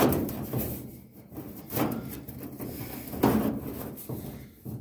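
A handmade sheet-metal hood-scoop panel being slid and worked into place on a car's steel hood: several separate scraping, rubbing sounds of metal on metal.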